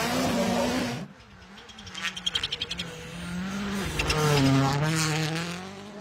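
Rally car engines: a loud full-throttle run that cuts off about a second in, then a quick string of sharp pops around two seconds in, and an engine revving down and back up near the end.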